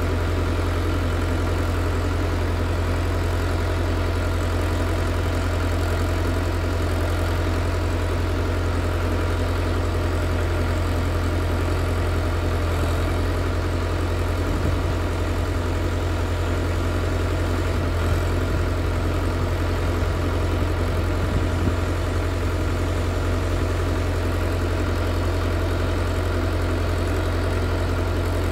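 Volvo BM T650 tractor's diesel engine idling steadily.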